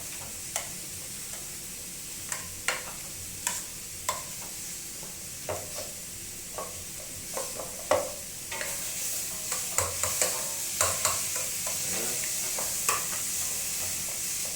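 Hand potato masher pressing soft boiled potatoes, with irregular squishy strokes and sharp knocks of the masher against the container, over a steady high hiss that grows louder about halfway through.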